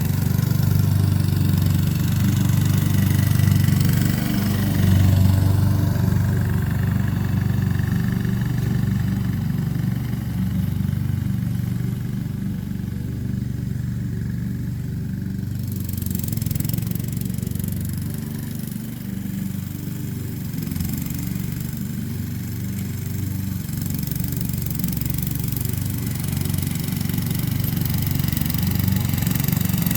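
Honda HRX217 walk-behind mower's engine running steadily under load while mowing dewy grass, growing somewhat quieter in the middle and louder again near the end.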